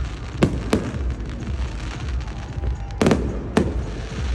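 Fireworks going off: two sharp bangs about half a second in, a quick cluster of cracks around three seconds in and another bang just after, over a steady low rumble.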